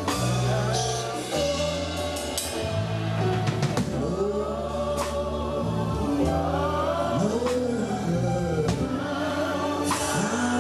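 Gospel worship music: a choir singing over sustained bass chords that change every second or two, with an occasional cymbal hit.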